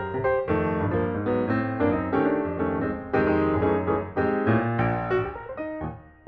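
Piano-led background music, a steady run of notes over a low bass, dipping briefly near the end.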